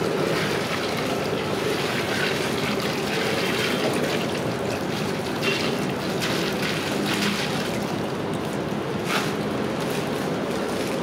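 Cashews deep-frying in a large kadai of hot oil, a steady sizzle with a few sharp pops and crackles.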